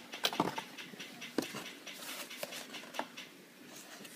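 Hands handling and working open a small cardboard box: a few short scrapes and taps over faint rustling, the sharpest near the start and about a second and a half in.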